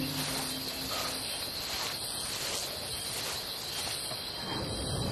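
Night ambience of crickets chirping steadily, with a soft guitar cue dying away at the start.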